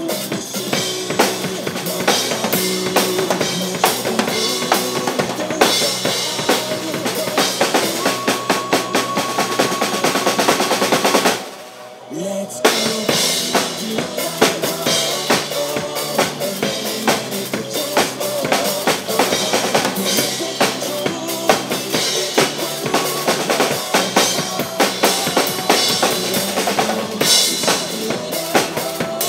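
Acoustic drum kit played live (kick drum, snare, rimshots and cymbals) over a pop-rock backing track. A little under halfway through, the music drops to a near stop for about a second, then the drums and track come back in together.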